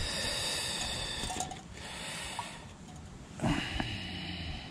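Water trickling from a stainless steel cup onto coffee grounds in a paper drip filter, in two spells: one at the start and another beginning with a soft knock about three and a half seconds in.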